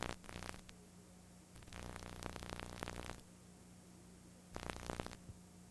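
Noise from a blank stretch of videotape: a steady low hum under hiss, broken three times by bursts of louder crackling static.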